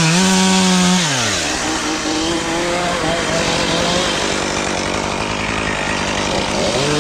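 Chainsaw engine held at high revs, then dropping back about a second in and running on at lower speed.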